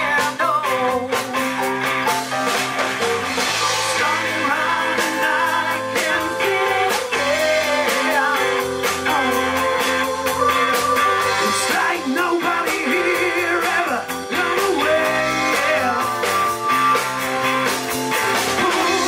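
Live band playing a song: a woman singing into a microphone over electric guitar, electric bass, keyboard and a Pearl drum kit.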